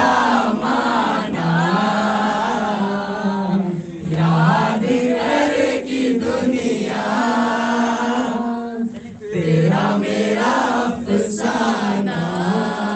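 A crowd singing a Hindi song together, led by a young man's voice, in long held phrases with short breaks about four and nine seconds in.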